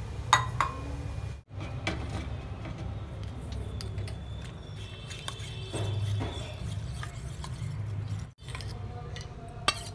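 Steel spoon stirring and scraping in a small stainless steel bowl, mixing custard powder into milk, with scattered light clinks. There is a sharp clink just after the start and another near the end, over a steady low hum.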